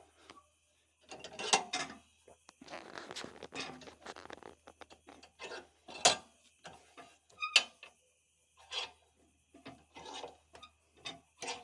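Metal sawmill hardware being worked by hand: irregular clicks, clanks and rattles as the log clamps and bars on a Woodland Mills HM122 sawmill are undone and shifted, with one short metallic ring about seven and a half seconds in. No engine is running.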